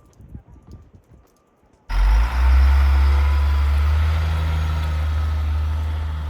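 A few faint clicks, then about two seconds in a loud, steady engine rumble with a hiss over it starts abruptly and carries on.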